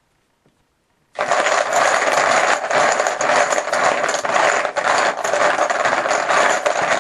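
Poker chips clattering as they are shaken and stirred in a bucket, a loud continuous rattle of many small hard pieces that starts about a second in.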